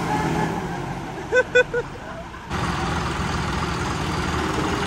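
John Deere tractor diesel engines running. Three short pitched blips come about a second and a half in. About two and a half seconds in, the engine sound jumps suddenly louder and then holds steady.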